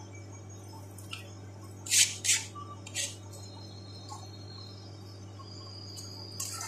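Chef's knife chopping cucumber on a cutting board: a few separate chops, the loudest two close together about two seconds in, over a steady low hum.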